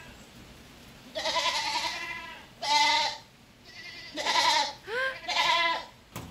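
Goats bleating: four wavering calls, the first the longest at about a second, with shorter ones following over the next few seconds.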